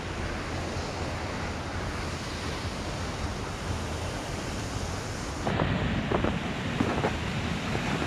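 Steady rushing noise of a waterfall mixed with wind. About two thirds of the way in the rush turns lower and duller, and a few soft crunching footsteps in snow come through.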